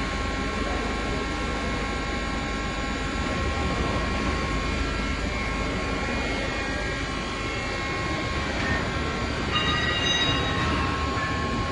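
Hitachi Seiki CNC lathe running: a steady mechanical hum with several steady whining tones, and a brief set of higher whining tones for about a second near the end.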